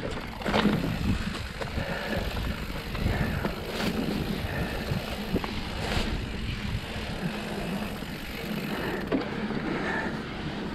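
Mountain bike riding fast down a dirt trail: steady tyre noise and the bike rattling over rough ground, with sharp knocks over bumps about half a second, four and six seconds in.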